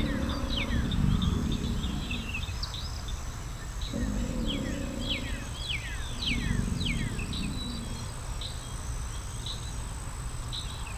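Small birds chirping over and over in quick downward-sliding chirps, with alligators giving low rumbling bellows three times: near the start, about four seconds in and about six and a half seconds in.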